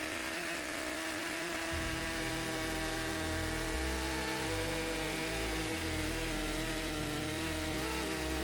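Stihl MS 881 chainsaw on an Alaskan-style chainsaw mill running at steady full throttle, ripping a lengthwise cut through a large spalted beech log. The engine note holds at one pitch throughout.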